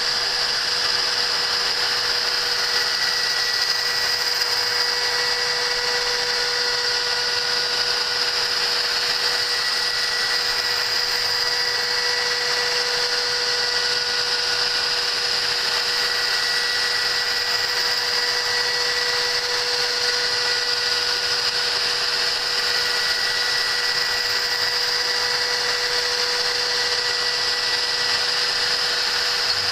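Small CNC machine's spindle running steadily while machining a stepper-motor mounting bracket: a continuous whine over a steady hiss of cutting.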